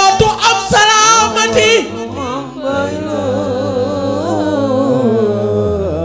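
Wolof religious chant praising Mame Seydi, a voice singing long, bending melodic lines. About halfway through the singing turns softer over a steady low drone.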